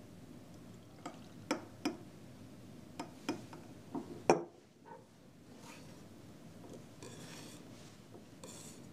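Glassware clinking as chopped onion is stirred in detergent and salt solution in a glass beaker: a string of sharp clinks and taps over the first few seconds, the loudest about four seconds in, followed by a soft rustle.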